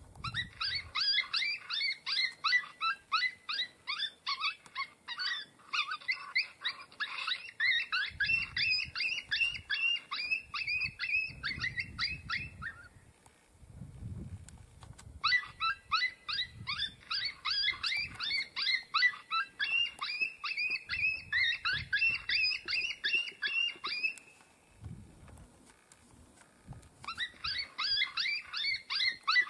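Lucky Duck Revolt electronic predator call playing a rapid, regular run of short high yelping distress cries, several a second. It plays in three bouts, with pauses about 13 and 25 seconds in.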